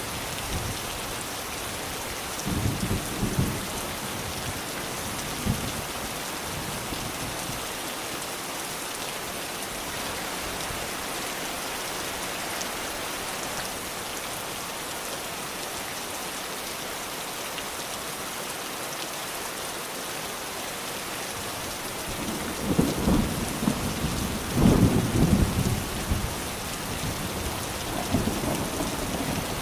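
Steady rain falling, with low rolls of thunder: a short one about three seconds in and a longer, louder rumble near the end.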